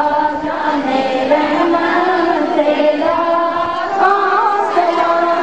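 Women singing a devotional naat, with long held notes that waver slightly in pitch.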